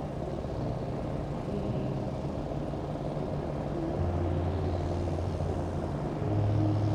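John Deere tractor's four-cylinder diesel engine running at the start of a pull, its note rising in a step about four seconds in and again near the end.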